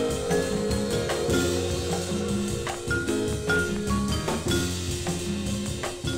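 Jazz-soul music playing from a 45 rpm vinyl single, with a drum kit keeping the beat under sustained melodic notes.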